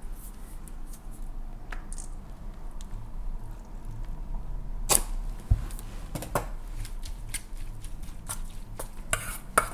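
A few scattered clicks and knocks. From about eight seconds in, a metal spoon clinks and scrapes quickly against a stainless steel mixing bowl as it stirs crab meat.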